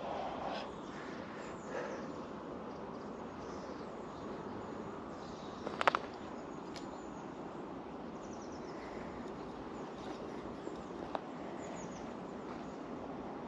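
Quiet lakeside ambience: a steady soft outdoor hiss with faint bird chirps. About halfway through comes a quick cluster of sharp clicks, with two fainter single clicks later, from the fishing rod and spinning reel being handled.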